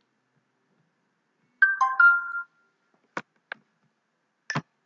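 A short electronic notification chime of a few quick stepped tones, lasting under a second, about a second and a half in. Three sharp mouse clicks follow.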